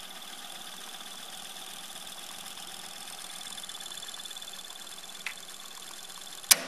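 Akai CS-M40R cassette deck fast-winding a tape: a steady mechanical whir with a faint high whine. Near the end, a sharp clunk as a transport key is pressed.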